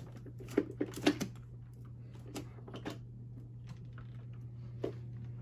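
A Bissell canister vacuum being handled, giving a handful of short clicks and knocks, the clearest about half a second and a second in, with a few more later, over a faint steady low hum.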